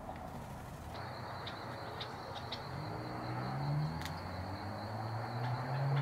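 A steady high insect drone, cricket-like, starts about a second in, with a few short bird chirps over it. In the second half a vehicle engine's low hum rises in pitch and grows louder.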